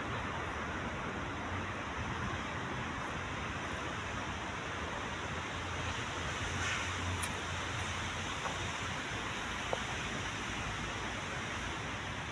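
Steady outdoor background noise: a constant even hiss with a low rumble underneath and a few faint ticks.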